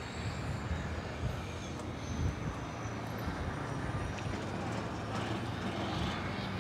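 Steady background of distant vehicle noise: a low, even hum with a light hiss over it.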